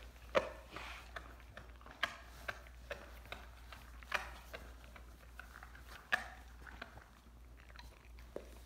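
Dog gnawing and chewing a raw lamb leg bone: irregular wet crunches and sharp clicks of teeth on bone and meat, with a louder crunch every two seconds or so.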